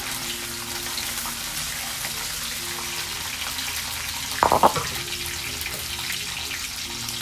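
Chopped garlic and annatto sizzling steadily in hot oil in a wok as the garlic browns, with a brief clatter about four and a half seconds in.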